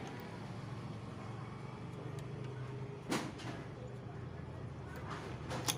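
Two sharp knocks, one about three seconds in and one near the end, over a steady low background hum.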